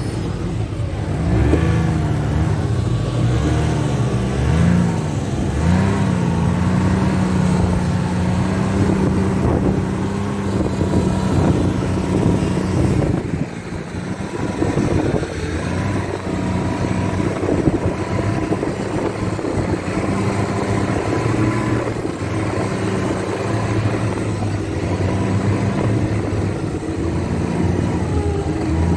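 Snowmobile engine running under way, heard from the passenger seat. Its pitch rises and falls with the throttle for the first few seconds, then holds steady, with a brief drop in engine sound about 13 seconds in before it picks up and wavers again.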